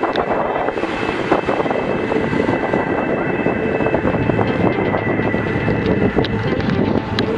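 Steady wind rush on the microphone and tyre and road noise from road bikes rolling on asphalt at about 20 to 30 km/h, with a few sharp clicks.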